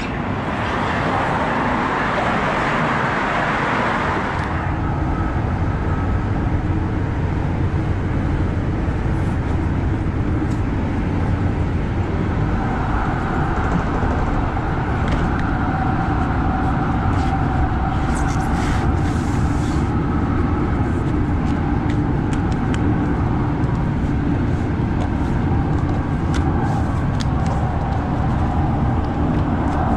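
Interior of a moving rail passenger car: a steady low rumble from the running train with a faint motor whine over it, after a hissing noise in the first four seconds or so as the train sets off.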